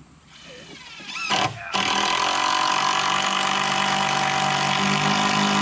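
A power drill driving a screw into a 2x6 framing board. It whines up in pitch about a second in, then runs loud and steady under load for about four seconds and stops near the end.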